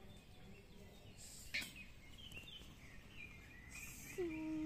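Quiet woodland ambience with small birds chirping, and a single sharp click about a second and a half in. Near the end a louder drawn-out wailing tone starts, holds steady and then rises in pitch.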